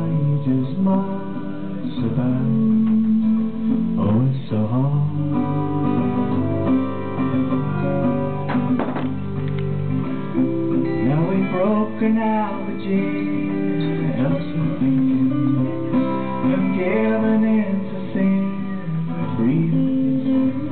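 Acoustic guitar strummed in a live solo instrumental passage.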